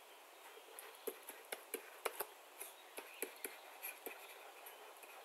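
Faint, irregular clicks and taps of a stylus writing on a tablet screen: about a dozen short ticks over a few seconds.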